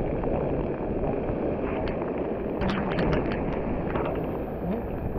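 Wind and rain buffeting the microphone over rough surf: a steady rushing noise, with a few sharp ticks about halfway through.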